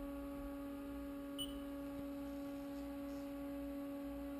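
Steady electrical hum of a Haas CNC milling machine standing powered up: a few fixed tones over a low rumble. A brief faint tick about a second and a half in.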